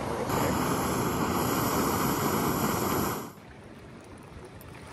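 A loud, steady rushing noise that cuts off suddenly about three seconds in, leaving a much quieter outdoor background with a few faint clicks.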